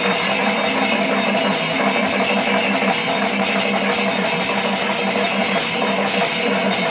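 Kerala temple panchavadyam ensemble playing: a loud, dense, unbroken wash of rapid drum strokes and clashing cymbals.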